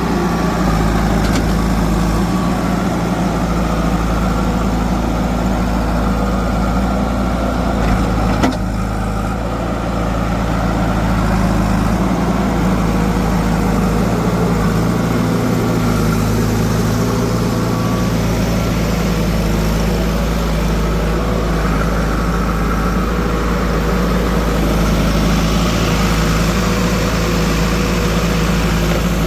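Heavy diesel machinery engine running steadily at low revs, with a single sharp knock about eight and a half seconds in.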